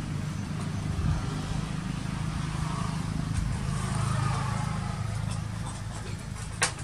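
A steady low engine hum, like a motor vehicle running nearby, with one sharp click just before the end.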